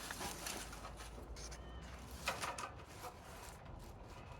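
A few light knocks and clatters of hands handling trellis parts, the loudest a double knock a little past halfway, over a quiet outdoor background with a faint short whistle-like call about a second and a half in.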